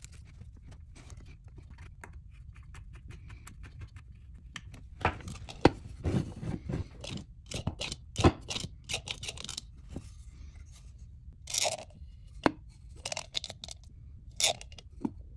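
Hands handling a small wooden box and its hinged lid on a workbench: scattered sharp clicks and knocks and short scratchy rustles, picking up about a third of the way in.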